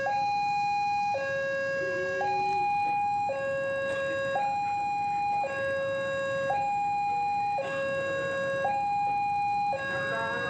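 Railway level-crossing warning alarm sounding a steady electronic two-tone hi-lo signal, each tone held about a second, warning that a train is approaching the crossing.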